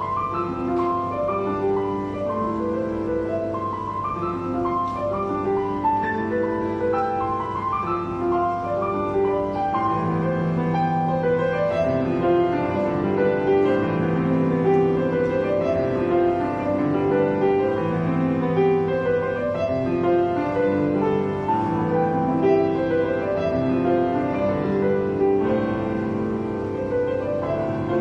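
Grand piano played solo: a continuous flow of melody notes over held chords, with deeper bass notes joining and the playing growing a little louder about ten seconds in.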